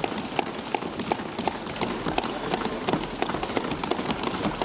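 Members of Parliament thumping their desks in applause: a dense, irregular clatter of many hand-on-wood knocks, greeting the announced 33% rise in capital outlay.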